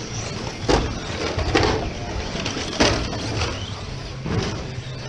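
Electric RC cars racing on an indoor carpet track, with a steady hum under several sharp clattering knocks of the cars landing jumps or striking the track's pipe borders.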